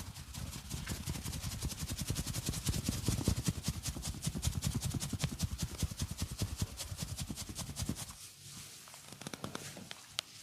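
Percussive hand massage: rapid, even strokes of the hands beating on the body, which stop about eight seconds in, followed by a few lighter separate taps.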